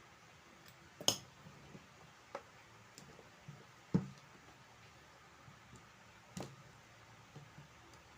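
Scattered light clicks and taps from handling a G-Shock watch and small repair tools, about five in all, the sharpest about a second in.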